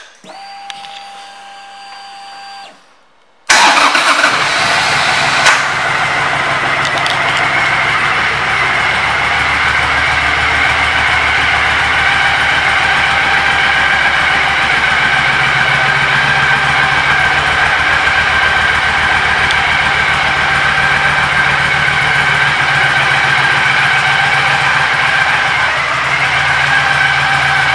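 A steady whine lasting about two seconds with the ignition switched on. Then the 2012 Triumph Thunderbird's parallel-twin engine starts abruptly about three and a half seconds in and settles into a steady idle.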